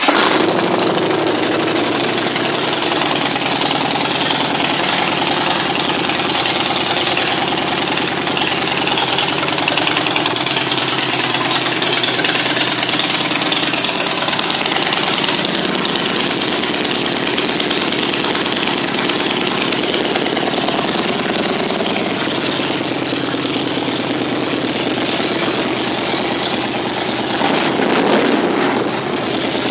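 2011 Harley-Davidson Dyna Fat Bob's 96 cubic inch V-twin idling steadily through an aftermarket Vance & Hines exhaust, just after being started. It gets briefly louder near the end.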